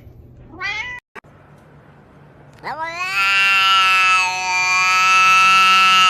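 A cat makes a short call, then after a cut a cat gives a long, loud, drawn-out yowl that rises at its start and then holds one steady pitch.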